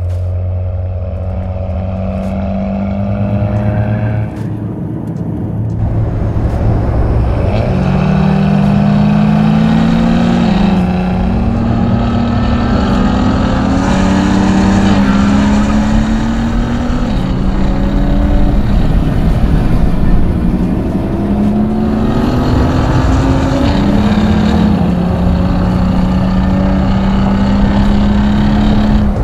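Cadillac ATS-V's 3.6-liter twin-turbo V6, fitted with an aftermarket downpipe, under hard acceleration on track. After a steady note for several seconds, the engine pitch climbs and drops back again and again as the 8-speed automatic upshifts.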